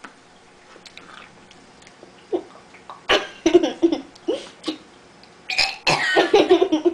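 A person coughing and clearing their throat several times, starting about two seconds in and coming thicker toward the end.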